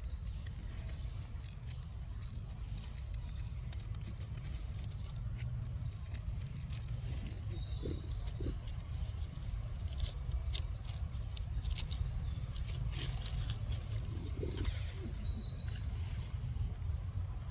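Outdoor ambience: a steady low rumble with scattered light clicks and a few faint, short high chirps.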